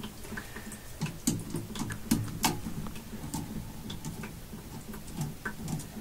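Hand tools clicking and clinking as they are picked up and handled, with a few sharper clicks between one and two and a half seconds in, over a steady low hum.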